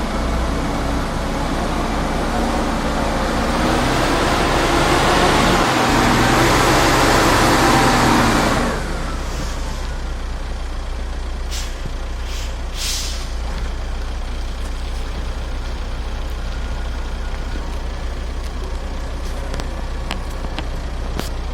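Logging truck engine working hard, growing louder for about eight seconds, then dropping off suddenly as the throttle is let off, its pitch falling. A few short hissing bursts follow a few seconds later over the steady lower running.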